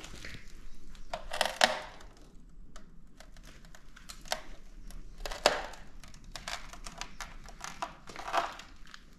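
Footsteps crunching and rustling over rough ground in uneven steps, with sharper cracks a little over a second in and about halfway through.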